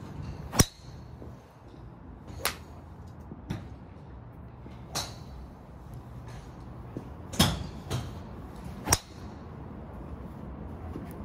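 Sharp metallic clicks of golf drivers striking balls, about seven in all: the loudest about half a second in, two more loud ones near seven and a half and nine seconds, and fainter strikes between. The golfer's own strikes come from a 9° TaylorMade R9 titanium driver. A low steady hum runs underneath.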